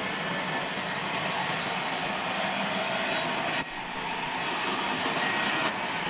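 Large vertical band saw ripping a live-edge log slab into boards: a steady sawing noise over a low motor hum, easing briefly a little past halfway through.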